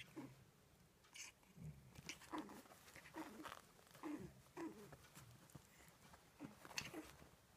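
Cavalier King Charles Spaniel puppies play-fighting: faint, short puppy vocal sounds, small grunts and growls, come roughly every half second, mixed with light rustling as they scuffle on a blanket.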